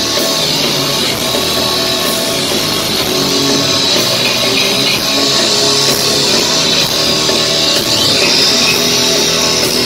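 Heavy rock band playing live, loud and without a break: distorted electric guitars over a drum kit.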